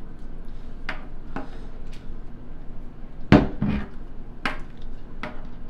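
A series of short knocks and clinks from objects being handled and set down, about seven in all, the loudest a pair about three and a half seconds in.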